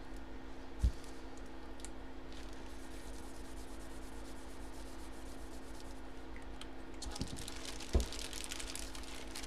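Steady low electrical hum with faint rustling and handling noise, broken by two soft thumps, about a second in and near the end.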